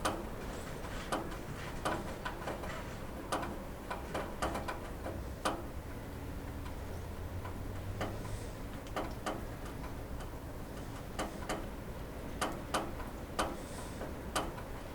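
Rain dripping onto a roof: individual drops land as sharp, irregular taps, several a second at the busiest, over a faint steady hiss.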